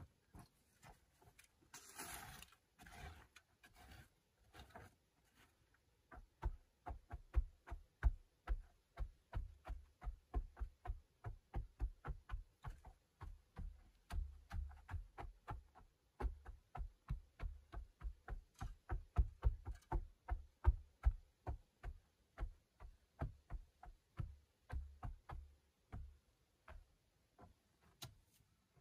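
Short-handled shovel blade chopping repeatedly into hard, dry clay soil: quick dull strikes, about four or five a second, with a short pause about halfway through.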